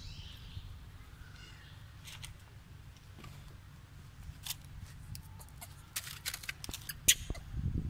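Scattered short clicks and rustles over a steady low rumble, growing busier and louder in the last two seconds, with one sharp click about seven seconds in.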